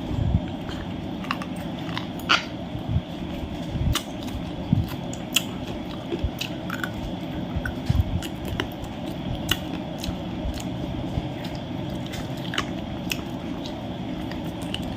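A person eating close to the microphone: irregular chewing, biting and wet mouth clicks over a steady low background noise.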